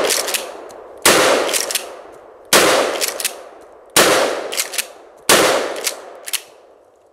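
Short-barreled pump-action shotgun with a 13-inch barrel fired four times, about one shot every second and a half, each blast trailing off in echo. Between shots the pump is racked, with quick clacks as the spent shell is ejected and a new one chambered.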